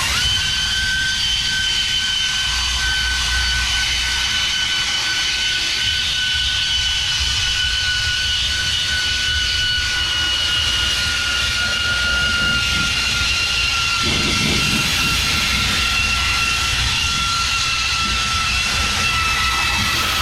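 A power tool running steadily with a high whine and hiss, its pitch sagging slowly.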